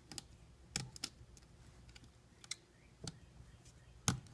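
A handful of small, irregular clicks and taps from hands and tools working on the parts of an opened iPad, with the loudest one near the end.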